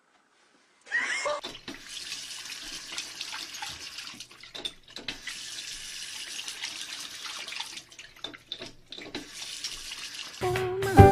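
Water running from a bathroom sink faucet, a steady hiss that breaks off briefly a few times. About a second in, there is a short pitched sound that rises and falls.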